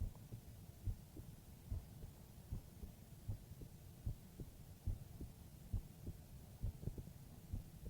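A human heartbeat beating slowly and steadily, about 75 beats a minute: soft, low thumps over a faint steady hum.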